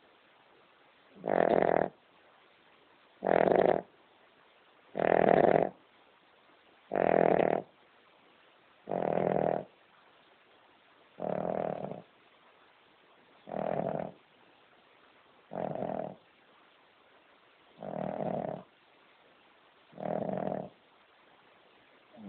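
King Charles Spaniel snoring loudly in deep sleep: about ten snores, one every two seconds or so, each well under a second long, the first few loudest.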